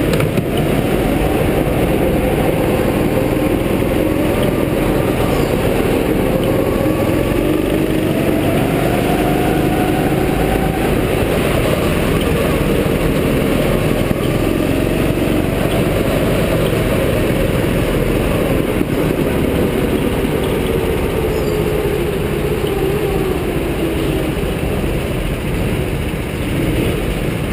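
Rental go-kart engine heard onboard, its pitch rising and falling as the kart speeds up and eases off through the corners, with a steady rush of noise underneath. It eases off near the end as the kart slows into the pit lane.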